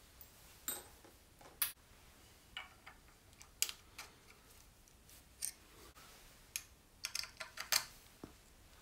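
Scattered small, sharp clicks and taps from a hex key turning the clamp screw of a 3-button handlebar switch being fitted to the bar, with a quick run of clicks near the end.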